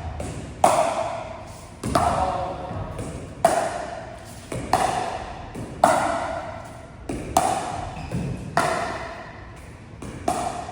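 Pickleball paddles hitting a plastic pickleball back and forth in a steady drill rally: about nine sharp pops, roughly one every second and a quarter, each ringing briefly with a hollow ping.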